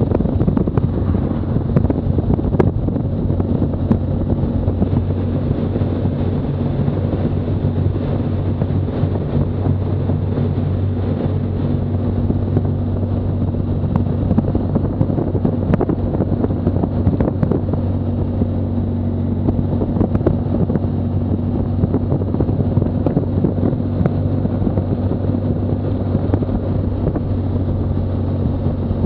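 Touring motorcycle's engine running at a steady cruising speed, with wind rushing over the microphone.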